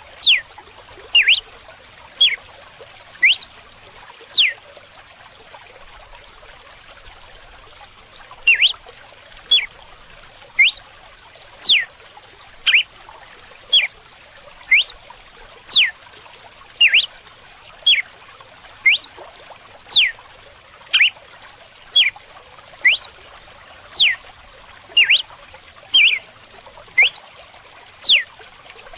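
Red-cowled cardinal (galo-de-campina) singing its 'açoite' (whip) song: short, sharp whistled notes, each sweeping quickly up or down, about one a second, with a pause of about four seconds near the start. Under the song runs a steady trickle of flowing water.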